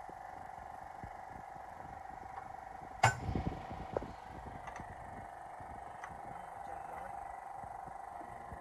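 Engine oil poured from a plastic jug through a plastic funnel into a car engine's oil filler, faint under a steady hum. There is one sharp clink about three seconds in, and a few lighter ticks after it.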